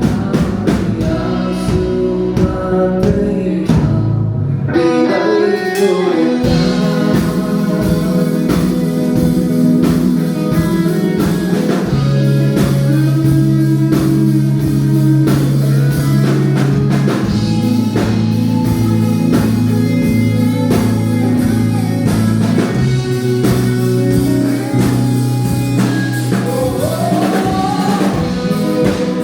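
Live band playing a song through a PA, with a singer, guitar, bass and drum kit on an even beat. The bass and drums drop out briefly about five seconds in, then the full band comes back in.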